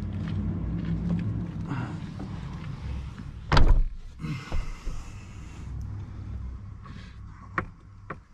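Inside a parked vehicle: a single thump about three and a half seconds in, then a couple of seconds of a car's power window motor whirring, with a few sharp clicks near the end, over a steady low hum.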